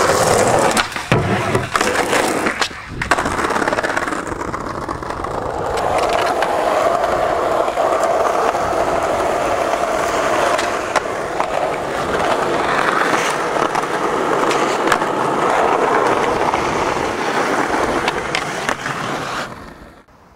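Skateboard wheels rolling over rough asphalt and concrete, with several sharp clacks of the board striking the ground. The rolling cuts off suddenly near the end.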